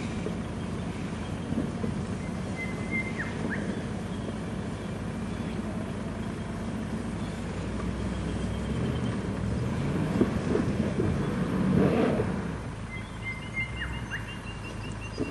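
Land Rover Discovery's engine running at low revs as it crawls up a rocky track. It grows louder about two-thirds of the way through, with a few knocks as the wheels climb over rock. A bird whistles briefly near the start and again near the end.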